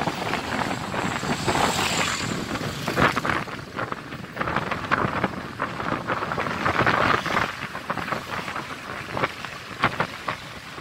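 A car in motion heard from inside the cabin: steady road and engine noise with gusty wind crackling and buffeting over the microphone, rising and falling throughout.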